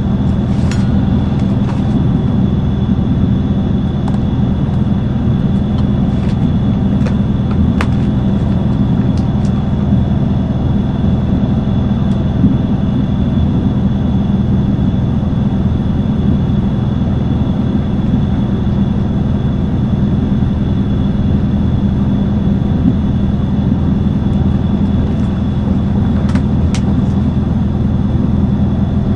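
Steady, loud running rumble of a moving Trans-Siberian passenger train, heard from inside the carriage, with a few sharp clicks now and then.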